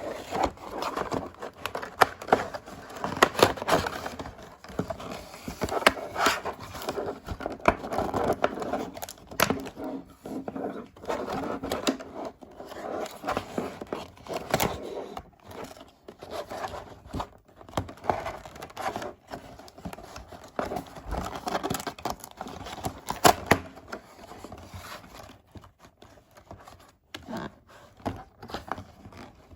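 Toy packaging being handled and torn open: continuous crinkling and rustling, broken by many sharp clicks and snaps.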